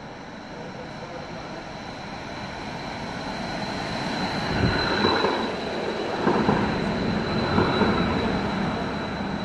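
Low-floor tram pulling into an underground station platform. Its running rumble grows steadily louder as it comes up and passes close by in the middle and later part, over a steady thin high tone.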